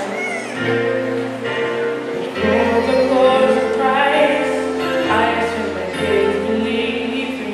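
A choir singing in held chords, the notes changing every second or so over a sustained low bass note.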